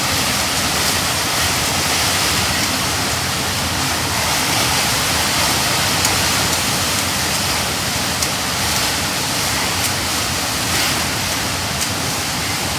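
Steady rushing noise of storm wind and rain, an even hiss with no breaks.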